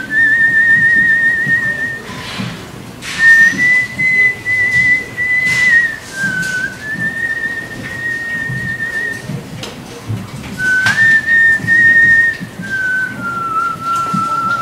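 A man whistling through pursed lips: long held notes with a fast vibrato that step between pitches and settle lower near the end, broken by two breathy rushes of blown air.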